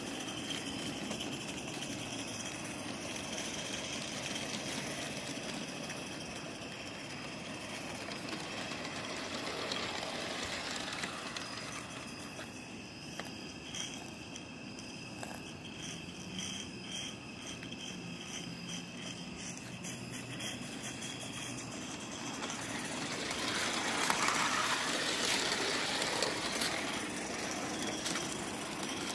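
Live-steam Forney tank locomotive running along its garden-railway track, with steady steam and mechanical running noise and wheels rattling on the rails. It gets louder for a few seconds near the end as it passes close by.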